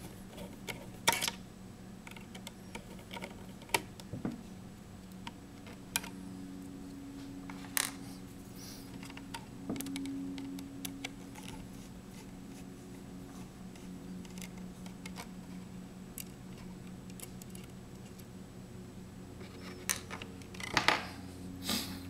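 Scattered small clicks and taps of a screwdriver and hands working screws out of a laptop's screen brackets and handling the plastic and metal parts, with a quick run of louder clicks near the end. A faint steady low hum runs underneath.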